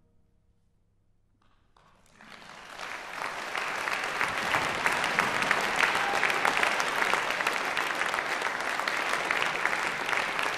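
Audience applause: near silence for about two seconds, then clapping starts, swells over about a second and holds steady.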